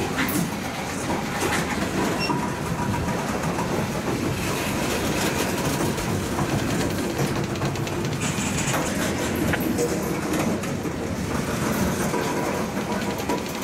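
Freight train of covered hopper cars rolling past close by: a steady noise of steel wheels running on the rails, with repeated clicks as the wheels pass over the rail joints.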